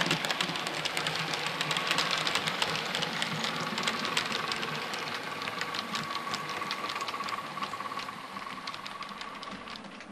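OO gauge model of a two-car class 108 diesel multiple unit running on the track: a steady high motor whine with rapid clicking of the wheels over the rail joints, fading over the last couple of seconds as it moves off.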